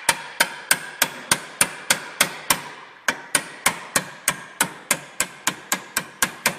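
Hammer steadily striking a steel punch, about three blows a second, each with a short metallic ring. The punch is driving the roll pin out of a Yamaha golf cart's front spindle to free the kingpin.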